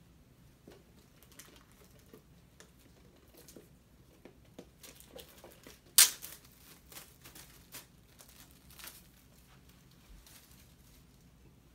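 Hands handling a Blu-ray steelbook case and its plastic wrapping: light crinkling and scattered small clicks, with one sharp click about halfway through.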